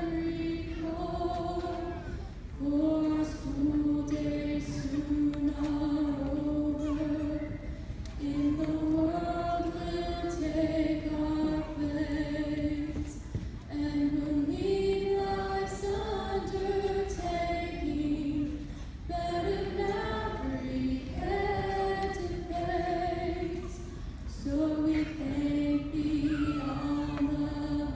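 High school graduating class singing their alma mater together as a large choir, in long held phrases with short breaks every five or six seconds.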